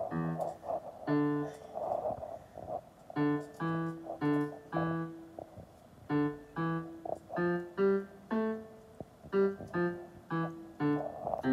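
Electronic keyboard played slowly: single notes, one at a time in short phrases, each note ringing briefly with pauses between the phrases.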